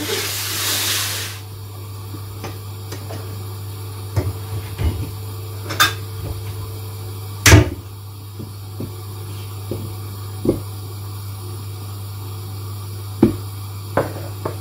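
Onions being peeled and trimmed with a knife on a plastic cutting board: scattered knocks and clicks as the onions and knife are set down, the loudest about halfway through, over a steady low hum. A short rustle opens it.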